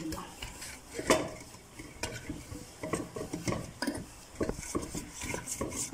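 Oil being rubbed around the inside of an aluminium ring cake mould, with irregular scraping and light knocks of the metal pan as it is handled, the sharpest knock about a second in.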